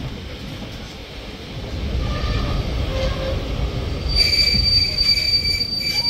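Steam-hauled train's wheels running on the rails with a low rumble that grows louder, then a steady high-pitched wheel squeal from about four seconds in.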